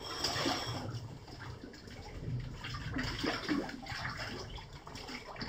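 Shallow water sloshing and splashing irregularly as a cave diver moves through a flooded cave passage.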